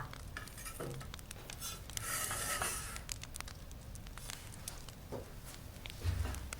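Soft paper rustling and handling with scattered small crackles of a fire, and a soft low thump near the end.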